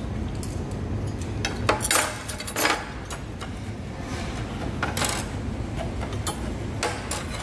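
Metal knife and fork clinking and scraping against plates while cutting a pork cutlet, with the sharpest clinks about two seconds in and scattered lighter ones after, over a steady low hum of the room.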